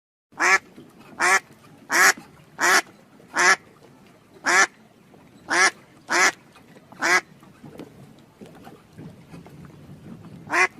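A duck quacking: nine loud, short quacks at about one a second, then a few seconds of faint low sounds, then one more quack near the end.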